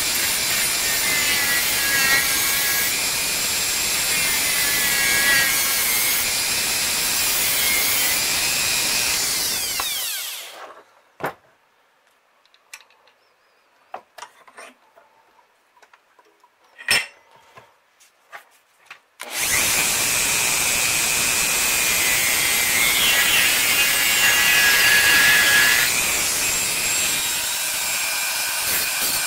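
Rotary tool with a cut-off wheel grinding into the brass head of a Winchester 12-gauge shotgun shell, a steady high-pitched grinding whine. The tool spins down about ten seconds in, leaving about nine seconds of near silence broken by a few small clicks. Then the grinding starts again as the wheel cuts into a brass tube.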